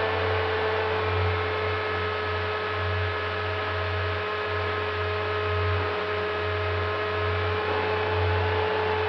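Electric brushless outrunner motor and propeller of a Bixler 3 RC plane running in flight, giving a steady whine with small pitch shifts, over a fluttering low rush of wind.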